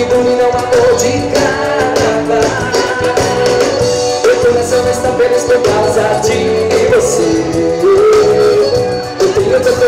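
Band music with a lead singer and a steady beat.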